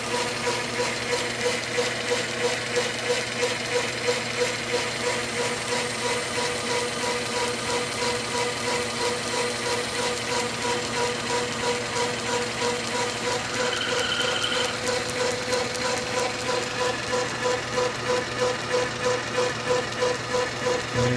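South Bend metal lathe running, a steady mechanical hum with a regular pulsing a few times a second. A brief higher squeal comes in about two-thirds of the way through.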